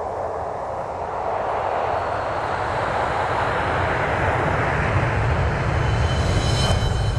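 Logo-reveal sound effect: a rushing whoosh that swells and builds into a deep rumble, with a brief high shimmering ring near the end.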